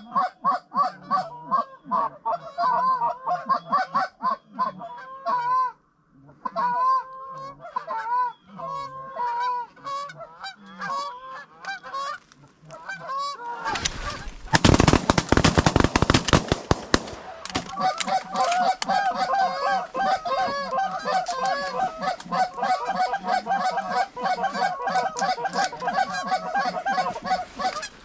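A flock of Canada geese honking constantly, many calls overlapping, as the birds come in over decoys. About halfway through, a very loud burst of noise lasts several seconds, and then the honking goes on.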